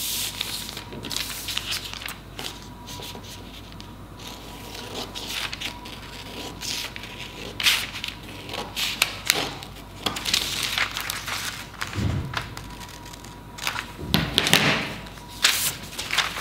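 Scissors cutting through folded pattern paper in short snips, with paper rustling and scraping as it is moved on a cutting mat, and a couple of low thuds near the end.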